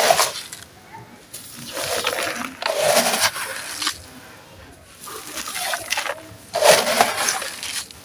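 Dry, gritty sand cement being crumbled by hand: grainy crunching in several bursts of a second or so, with short pauses between them.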